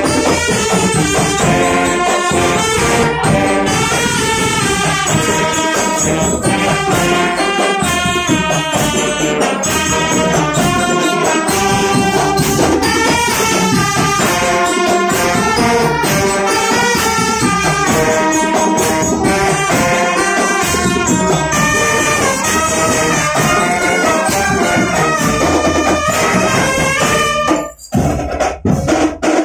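A marching drum band playing loudly: trumpets and other marching brass carry the tune over marching drums. Near the end the music cuts off suddenly and a few single drum strokes follow.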